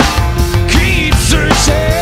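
Loud rock song with drums and a sliding lead melody over a dense band backing.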